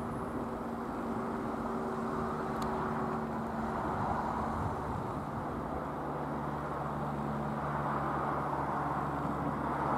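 Reims Cessna F172M Skyhawk's four-cylinder Lycoming piston engine and propeller droning steadily as the light aircraft flies overhead, the pitch dropping partway through as it passes.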